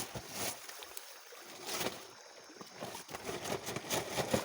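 Scattered small clicks and knocks over a faint watery rush.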